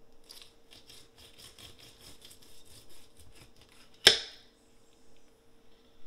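Knife cutting into a walleye behind its head on a wooden cutting board: a quick run of short scraping, clicking strokes for about four seconds, then one sharp knock, the loudest sound, about four seconds in.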